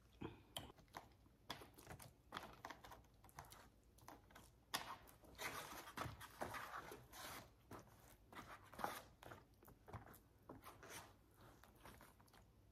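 Faint eating sounds: a fork stirring and scraping through salad and sauce in a foam takeout container, with chewing. Short clicks and crackles throughout, with a longer scratchy stretch around the middle.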